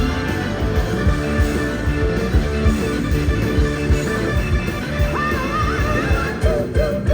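Live rock band playing an instrumental passage with a steady beat, with electric guitar to the fore. A wavering, bending lead line comes in about five seconds in.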